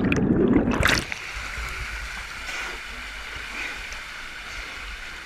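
Steady rush of flowing water at a waterfall, with a loud, muffled rumble in the first second.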